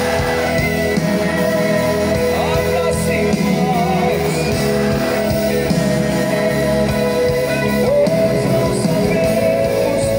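A live band with a singer, heard loud through the stage PA system from within the crowd: held chords under the sung melody.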